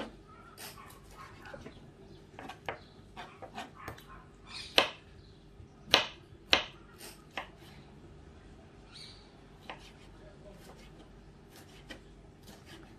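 Kitchen knife chopping tomato on a wooden cutting board: irregular sharp knocks of the blade striking the board, with the loudest few about five to seven seconds in.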